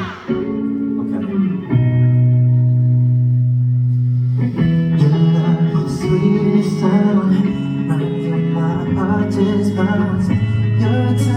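Instrumental song intro: held chords, then picked guitar notes and a light beat come in about four and a half seconds in.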